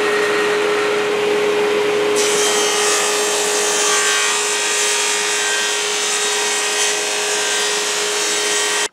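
Table saw running with a steady hum and ripping 3/8-inch Baltic birch plywood for drawer sides. The cutting hiss grows brighter about two seconds in and then holds steady.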